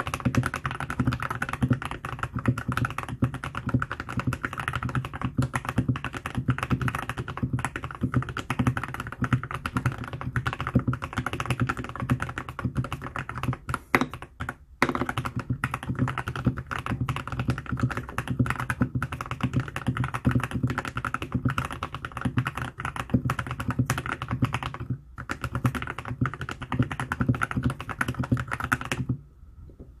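Fast, continuous typing on a TK68 mechanical keyboard with Gateron Silver linear switches, foam- and tape-modded, with ASA-profile keycaps: a dense run of keystrokes with two short pauses, stopping about a second before the end.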